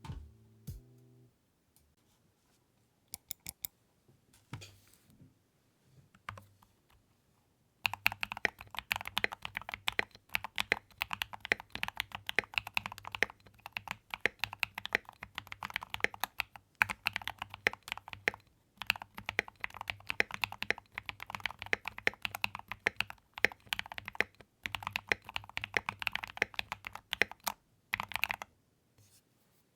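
Typing on a Keychron mechanical keyboard: a few scattered keystrokes at first, then fast continuous typing from about eight seconds in, with short pauses, stopping shortly before the end.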